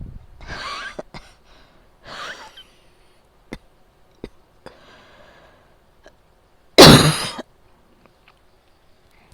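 A person coughing during an asthma attack: short coughs in the first couple of seconds, a soft drawn breath in the middle, and one loud cough about seven seconds in.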